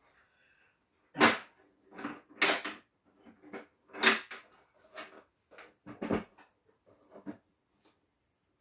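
Hard plastic Milwaukee tool case being handled on a wooden desk and opened: a series of sharp plastic clacks and knocks as it is set down, its latches snapped open and the lid lifted, the loudest about a second in.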